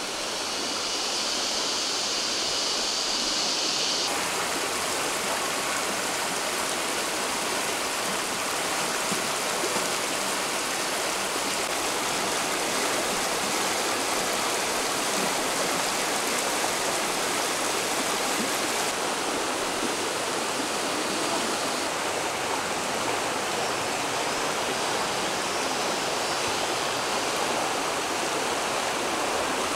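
Shallow rocky stream rushing over stones and small rapids, a steady rush of running water.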